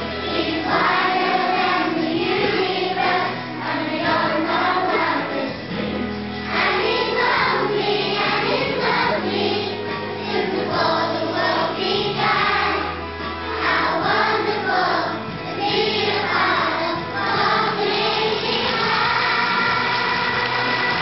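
A group of young schoolchildren singing a song together, over a musical accompaniment of sustained low notes.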